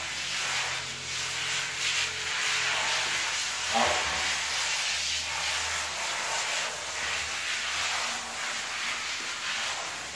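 Water spraying from a handheld shower head onto a dog's wet coat and a tiled floor, a steady hiss that wavers as the spray moves.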